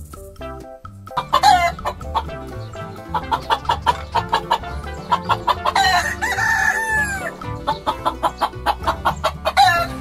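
A flock of hens clucking in many short, sharp calls, with a rooster crowing once about six seconds in, a long call that falls away at its end.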